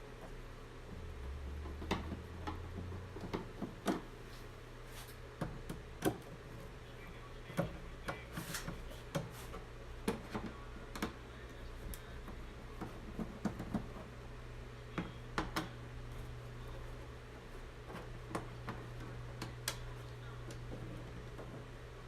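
Irregular small clicks and light knocks from tools and hands working on an LCD TV's plastic back cover and screws, over a steady low hum.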